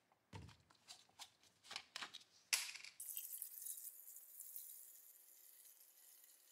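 A plastic jug is handled with a series of light clicks and knocks. From about three seconds in, cleaning solution pours from the jug into an enamel roasting pan with a steady hissing splash as it foams up, easing off slowly.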